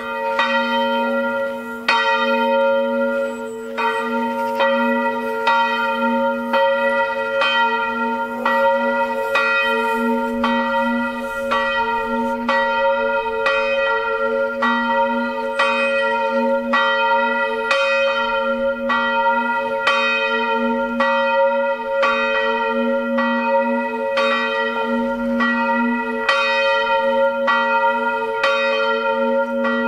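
A full peal of swinging church bells, from a set of five bells tuned in a diatonic scale on E-flat and rung 'a slancio'. Strokes overlap at roughly one to two a second, and the deep hum of the bells rings on between them. It grows louder right at the start.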